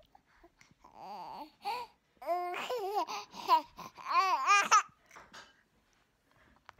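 Young baby cooing and babbling in a run of high, wavering vocal sounds, laugh-like at the loudest, from about one second in until nearly five seconds in.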